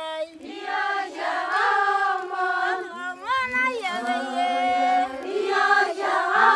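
Unaccompanied group singing, several voices together holding long notes and sliding between them in a chant-like style.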